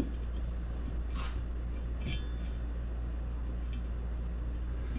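Faint handling of steel suspension parts, a light scrape about a second in and a few soft clicks, over a steady low hum.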